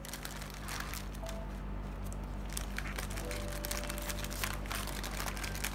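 Plastic sleeves and packets crinkling and rustling as stationery is handled, with many sharp crackles over a steady low hum and faint background music.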